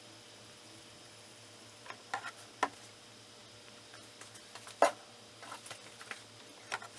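A few scattered light clicks and taps over a faint steady hum, the loudest nearly five seconds in: handling of the oil containers and fill point while fresh oil is added to the engine.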